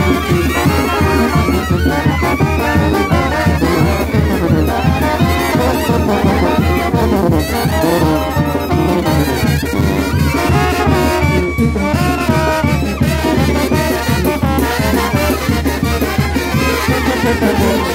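Mexican banda (brass band) playing loudly with trombones, clarinets, sousaphone and cymbals over a steady beat.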